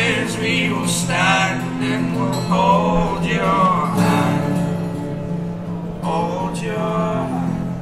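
Live acoustic folk music: strummed acoustic guitar under male voices singing held, drawn-out notes in harmony.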